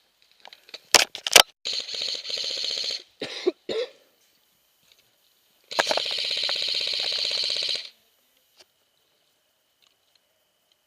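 Airsoft gun firing on full auto: two sharp cracks about a second in, then a burst of about a second and a half, a short burst, and a longer burst of about two seconds.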